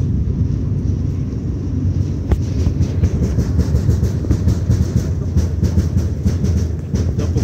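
Wind buffeting a phone's microphone on an open-air skyscraper-top deck: a loud, steady low rumble with frequent brief crackles.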